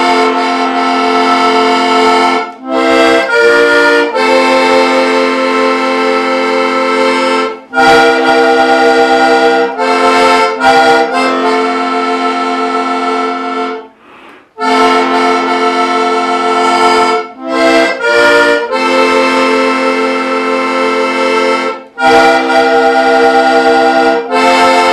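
Diatonic button accordion playing a Slovak folk tune in held chords, broken by short pauses between phrases and a brief drop-out about fourteen seconds in.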